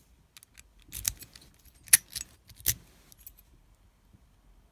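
Small metal hardware being handled, clinking and rattling: three sharp metallic clinks about a second apart with lighter rattles between, dying away after about three seconds.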